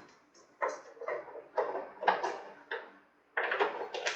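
A nut being undone on the plastic cover of a split AC indoor unit: a run of short clicks and scrapes, with a quicker cluster near the end.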